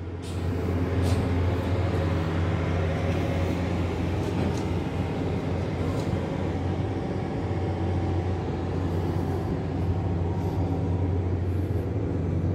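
Atlas Copco PowerROC T35 drill rig's diesel engine running steadily with a deep hum.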